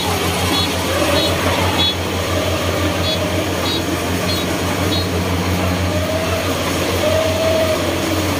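Kubota DC-70 rice combine harvester's diesel engine running steadily as the machine starts cutting and threshing, a loud low pulsing hum. Short high beeps repeat about every half second through the first five seconds.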